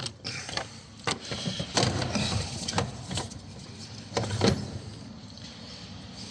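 Hand work on plastic parts in a car's engine bay: a run of irregular clicks, knocks and scraping rattles as a component is worked loose, dying down after about four and a half seconds.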